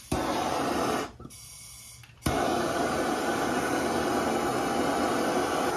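Handheld gas torch lit with a click and burning with a steady hiss, cut off about a second in, then relit with another click a little after two seconds and hissing steadily on; it is heating a seized brake line fitting where it joins the brake hose.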